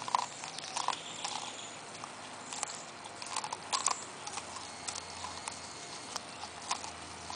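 A cocker spaniel and a cocker–Labrador mix gnawing kernels off a plain corn cob held for them, with teeth scraping and biting on the cob in irregular crunches and clicks.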